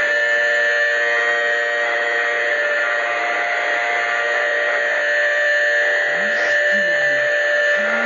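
A loud, steady electronic alarm drone of several held tones, from a mock emergency-alert broadcast. Low wavering tones join it about six seconds in.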